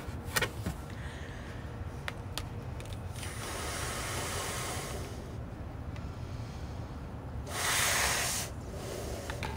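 A large latex party balloon being blown up by mouth: two long blows of air into it, the first about two seconds long and the second, near the end, louder and shorter, with a few small clicks early on.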